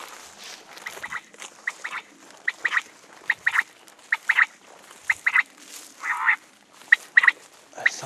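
Common quail calls played by an electronic quail caller: short sharp call notes in twos and threes, repeating about once a second. The caller is an illegal lure, set out in the stubble to bring migrating quail down to be shot.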